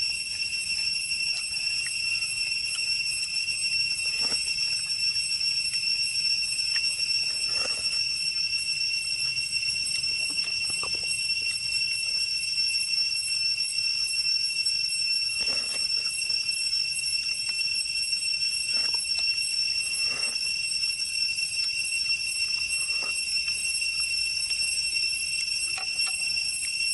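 A steady high-pitched ringing drone at several pitches, with soft crunches and clicks now and then as cooked shrimp are peeled apart and eaten by hand.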